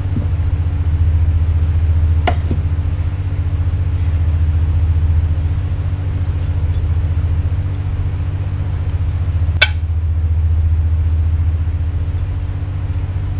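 A steady, loud low machine hum, with a faint click a couple of seconds in and a sharp click about nine and a half seconds in as small metal parts are handled.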